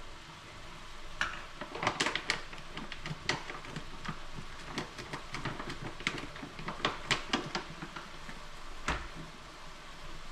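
Chicken mince frying in a pan, with a steady sizzle. A wooden spoon stirs and scrapes through it, giving a quick, irregular run of clicks and knocks against the pan from about a second in until near the end.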